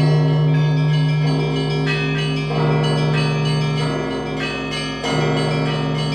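Russian Orthodox church bells rung in a zvon peal. A deep bell tone hums underneath, while the middle and small bells strike together again and again, a new cluster about every second and a quarter.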